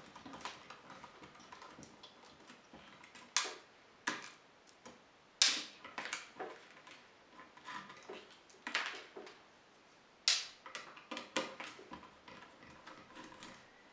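Irregular clicks and knocks of hands handling the opened Beolab 3 speaker's circuit boards, connectors and plastic housing, with the loudest knocks about a third of the way in and again past the middle.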